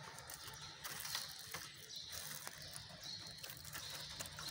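Faint handling noise: small plastic parts of a vlogging accessory being fiddled with, giving scattered clicks and ratchet-like rattles.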